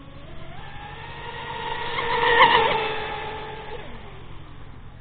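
Twin Goolrc 2968 3400 kV brushless electric motors of a Minicat 820 EP RC catamaran whining at full speed as the boat races past close by. The whine rises in pitch about half a second in and is loudest around the middle. It then drops in pitch and fades as the boat pulls away.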